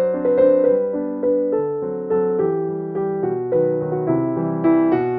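Background piano music, a gentle melody of struck notes.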